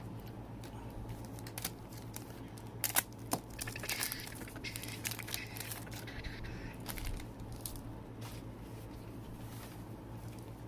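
A trading card pack's plastic wrapper crinkling and tearing as it is opened, with sharp clicks and rustles of the cards being handled, the busiest crinkling about 4 to 6 seconds in. A steady low hum sits underneath.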